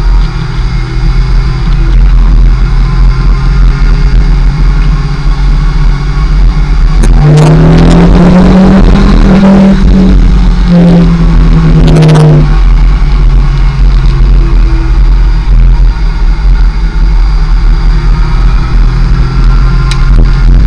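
Kawasaki ZX-6R Ninja 600's inline-four engine running under way. About seven seconds in, the engine revs up under acceleration: the note climbs, breaks briefly, holds high and falls back about five seconds later.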